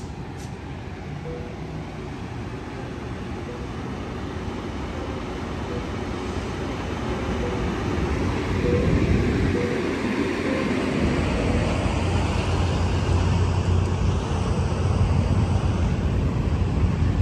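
Amtrak Capitol Corridor bi-level passenger train pulling out alongside the platform. Its rumble grows steadily louder, and a low engine hum becomes strong about two-thirds of the way through.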